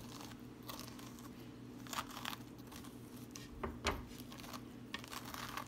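Seeds and stringy pulp being scraped and torn out of a halved raw spaghetti squash: faint, intermittent scraping and rustling, with a light knock a little under four seconds in.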